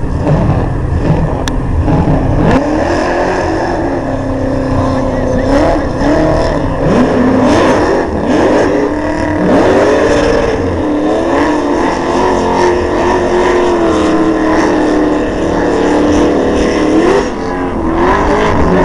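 Car engines revving hard, the pitch climbing, holding for several seconds and dropping again, over a steady low rumble of engines.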